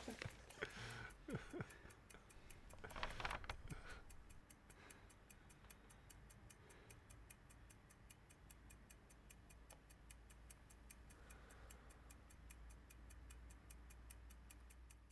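Faint, quick, even ticking of a clock in a quiet room. A few rustles and knocks sound over it in the first few seconds.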